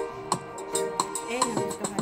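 Background music with plucked strings and a steady beat of about three beats a second.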